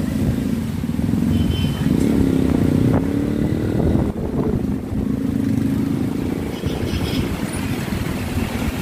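A tricycle's small motorcycle engine runs close by, rising in pitch between about two and four seconds in as it revs. Heavy rain falls steadily on an umbrella.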